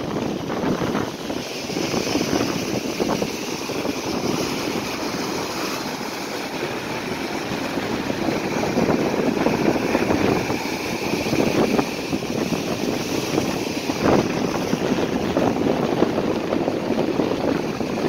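Sea surf breaking and washing over a rocky shore: a steady rushing noise with a few louder crashes.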